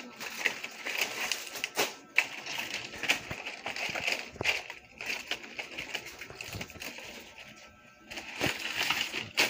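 Nipa palm leaves rustling, with irregular clicks, as they are folded over a rod and stitched into a pawid thatch shingle.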